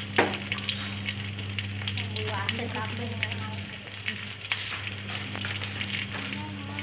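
Boiled salted fish (ikan asin rebus) frying in a shallow layer of oil in a wok, with steady sizzling and a spatter of small popping crackles. There is a sharp knock about a quarter of a second in.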